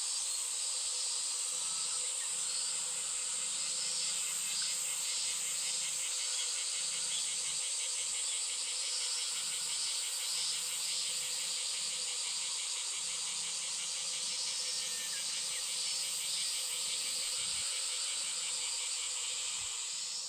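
Steady insect chorus: a continuous high shrill with a fast pulsing trill under it.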